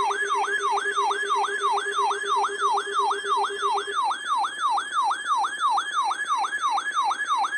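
Weather alert radio sounding its alarm for a received Snow Squall Warning: a rapid siren-like whoop that falls in pitch and repeats about three and a half times a second, with a steady lower tone under it that stops about halfway through.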